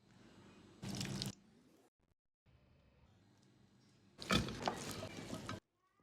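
Chopped salad being stirred in a bowl, heard as separate noisy bursts that start and stop abruptly; the loudest, about four seconds in, carries a few sharp clicks.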